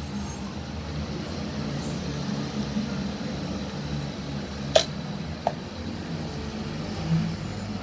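Steady low mechanical hum or rumble, with two sharp clicks a little past the middle, the first louder than the second.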